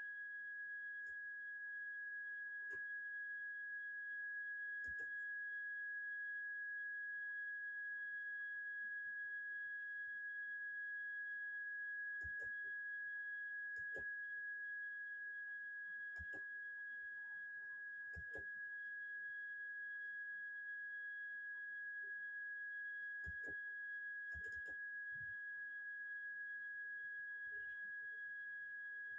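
A steady high-pitched pure tone held at one pitch throughout, with a fainter tone about an octave above it and a few faint, scattered clicks.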